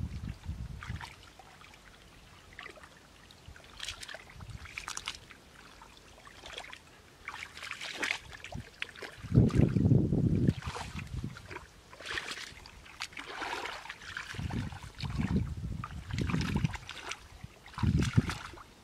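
Hands and feet sloshing and squelching in shallow muddy water in irregular bursts, with a louder low rumble about halfway through.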